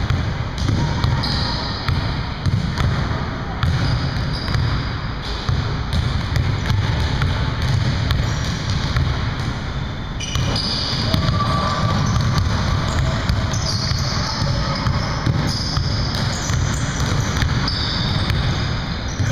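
Basketballs bouncing on a hardwood gym floor, with indistinct players' voices and running feet in a large gymnasium.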